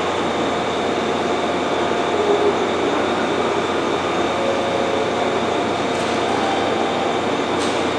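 Steady hum and hiss of a 415 series 1500-subseries electric train standing at the platform with its equipment running, with two faint clicks near the end.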